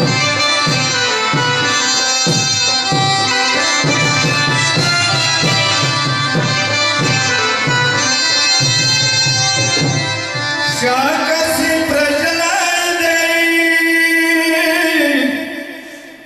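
Traditional music: a steady drum beat under a held melody for about ten seconds, then the drum stops and a voice sings a long, gliding melodic line that fades out near the end.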